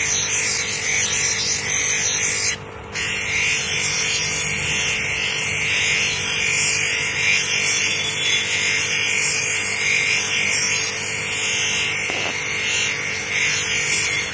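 Manual lens edging machine running with a spectacle lens hand-held against its spinning grinding wheel: a steady grinding hiss over the motor's hum. The sound cuts out briefly about two and a half seconds in.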